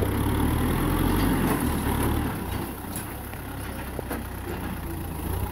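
Kubota M6040SU tractor's four-cylinder diesel engine running under load as the front blade pushes soil and brush. It is louder for the first couple of seconds, then eases off.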